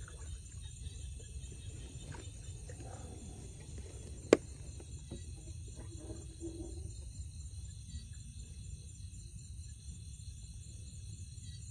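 Night chorus of crickets, a steady high trilling, over a low rumble. One sharp click about four seconds in.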